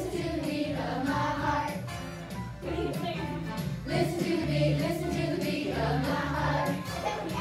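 A group of children singing an action song together, with a woman's voice among them, over musical accompaniment that has a steady low bass line.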